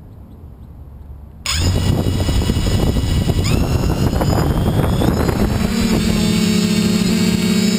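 FPV quadcopter's brushless motors and propellers starting up suddenly about one and a half seconds in, a loud buzz with a high whine that rises in pitch as the drone lifts off.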